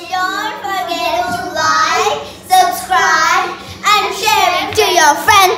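Children singing loudly, with long held, sliding notes.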